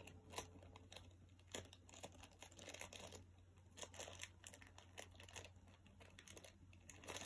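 Faint crinkling and rustling of a small plastic bag worked in the fingers, with scattered light clicks.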